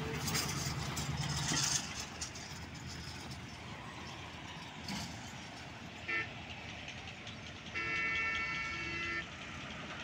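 Heavy truck hauling a loaded lowbed trailer pulls away, its engine hum strongest for the first two seconds before fading into steady road traffic noise. A vehicle horn gives a short beep about six seconds in and a longer blast of about a second and a half near the end.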